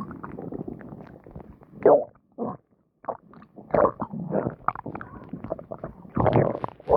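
A full stomach growling and gurgling after a meal, in irregular bursts. The louder gurgles come about two seconds in, near four seconds and near the end, with a brief lull just before the middle.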